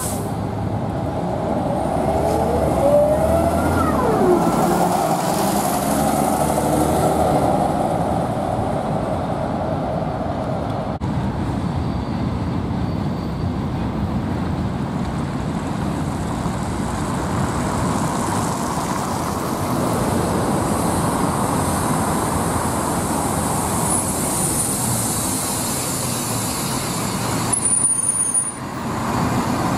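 City bus engines running at a stop, over steady road traffic; in the first few seconds an engine note rises and falls as a bus moves off.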